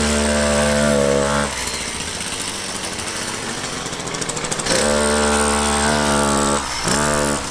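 70cc two-stroke chainsaw engine driving a toy car at full throttle with a steady, high-revving buzz. About a second and a half in it drops back for roughly three seconds, then runs flat out again, dipping and revving back up near the end.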